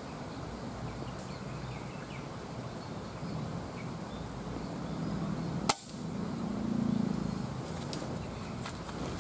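A single sharp air rifle shot a little past halfway, firing a 4.5 mm pellet, over steady background noise.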